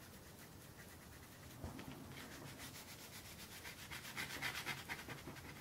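Paintbrush scrubbing back and forth on textured watercolour paper, a faint quick rasping that starts about two seconds in and grows a little louder near the end. The brush is working water into watercolour pencil to dissolve it.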